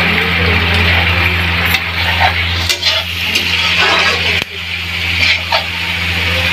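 A steel spatula scraping and knocking against an aluminium kadhai as macaroni is stirred and fried in spiced oil, over a steady hiss and a low hum.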